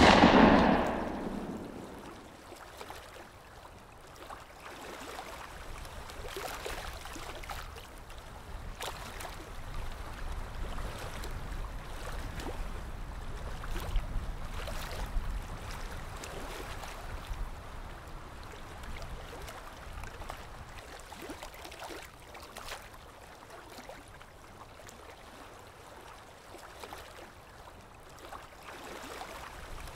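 A gunshot's echo dies away over the first two seconds, leaving a steady outdoor rush of river water and wind.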